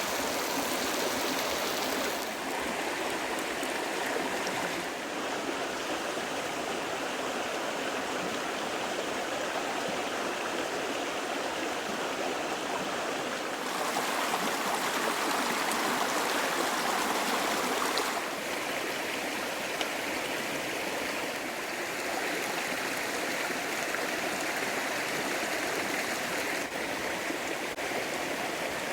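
A creek running over rocks, a steady rushing of water. Its tone and loudness shift abruptly a few times.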